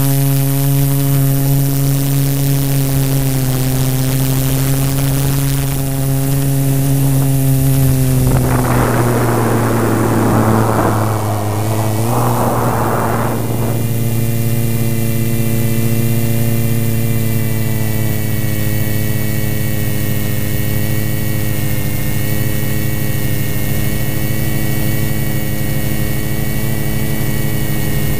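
Quadcopter drone's motors and propellers running steadily, heard from the drone's own camera as a loud multi-tone hum and whine. About a third of the way in, a rushing noise comes in for about five seconds while the motor pitch dips a little, then the steady whine settles again.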